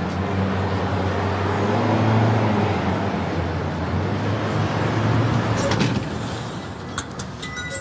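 City street traffic: motor vehicles passing with an engine rumble that swells twice, then drops away about six seconds in, followed by a few light clicks.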